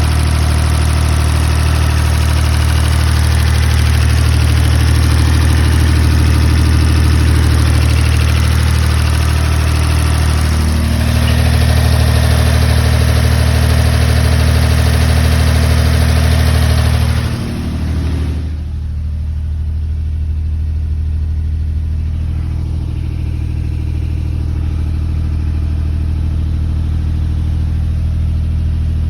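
An engine running steadily with a strong low hum. About eighteen seconds in, the hiss over it drops away sharply and the engine runs on more quietly.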